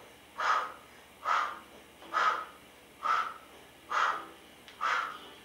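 A person's short, forceful exhales during bicycle crunches, one with each twist, about one a second, six in all.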